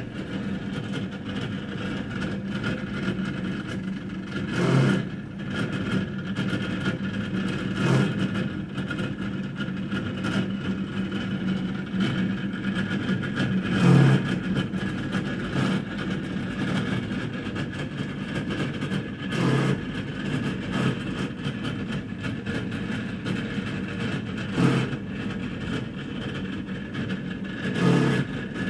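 Frigidaire refrigerator running with a loud, steady mechanical hum of several held tones. About six dull knocks sound a few seconds apart.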